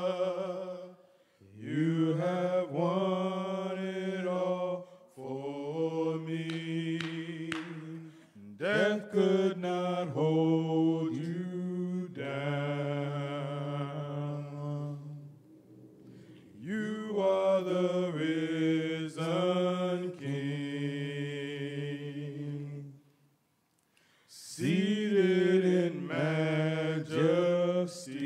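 Male voices singing a slow gospel song a cappella in harmony. The notes are long and held, in phrases of a few seconds with short breaths between them.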